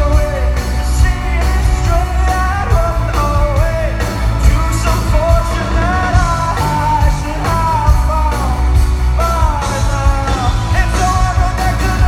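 Live rock band playing with a male lead singer, over a strong, heavy bass and steady drums.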